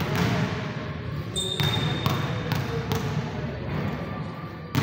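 Basketball bouncing on an indoor court floor: one bounce at the start, then four dribbles about half a second apart in the middle, and a louder sharp knock near the end.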